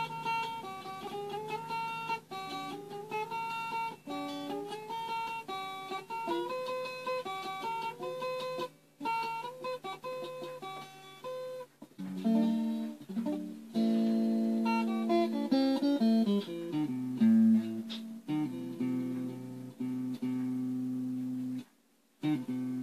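Instrumental background music: a quick plucked melody that changes about halfway through to lower, longer-held notes, breaking off briefly near the end.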